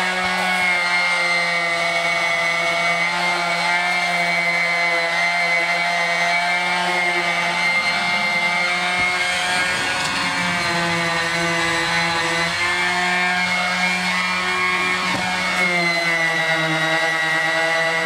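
Corded electric random orbital sander running steadily while sanding G2 feather-fill primer on a truck cab's sheet metal; its pitch drops slightly about halfway through and again near the end.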